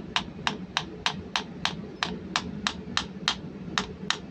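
Sharp, evenly spaced clicks, about three a second, from hand-tool work turning the KTA50's injector oil supply pipe to seat its o-ring, over a steady low hum.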